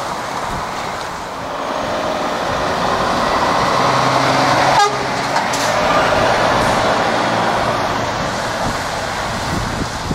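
Articulated lorry with a Scania tractor unit driving past close by. Diesel engine and tyre noise build up, peak about halfway through, then ease off.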